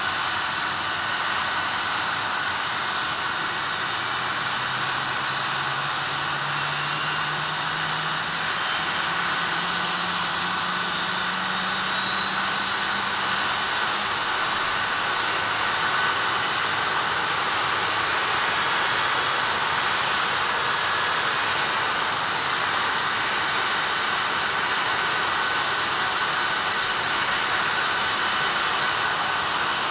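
Rolls-Royce Spey turbofan engines of a Hawker Siddeley Nimrod running on the ground: a steady jet rush under a high whine. A second whine rises in pitch from about twelve to sixteen seconds in, and a low hum also rises, as the engines spool up a little.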